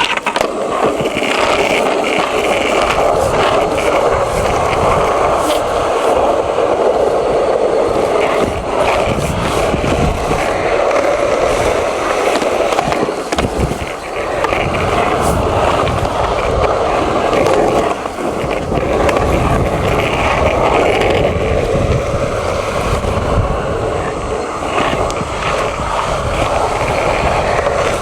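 Skateboard wheels rolling steadily and loudly over a concrete skatepark surface, with occasional short clacks from the board.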